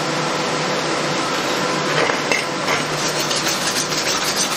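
A few short knocks as a stainless-steel wire brush is taken up, then about three seconds in rapid back-and-forth scrubbing of the bristles on a steel plate, cleaning the metal for TIG welding.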